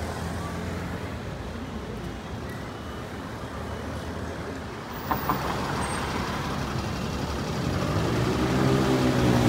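Steady street traffic noise, engines and tyres, with two short knocks about five seconds in. Near the end a vehicle engine grows louder as it comes close.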